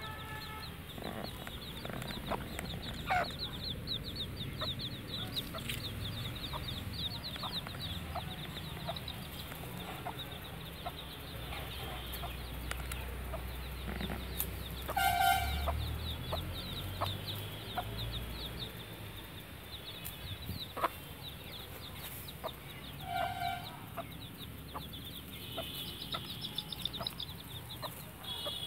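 Week-old chicks peeping almost continuously in short, high chirps, with a hen giving two louder calls, about halfway through and again near 23 seconds. A low rumble runs through the middle.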